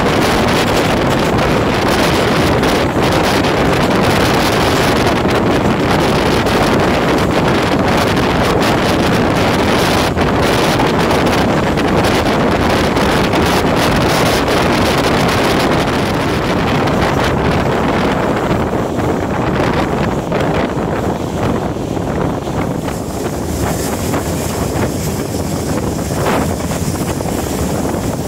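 Loud, steady wind buffeting the microphone over the rumble of a moving train.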